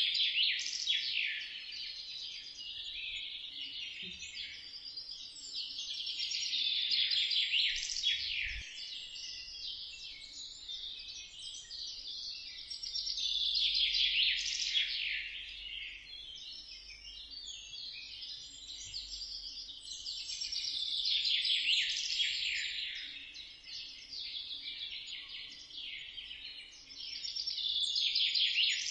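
Many small birds chirping and chattering at once in a dense, overlapping chorus, full of quick falling notes, that swells louder and fades back about every seven seconds.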